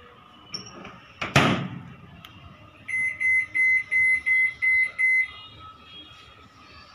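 Microwave oven door shut with a thump about a second and a half in, then about seven short high beeps, roughly three a second, as the timer dial is turned to set the cooking time to four and a half minutes.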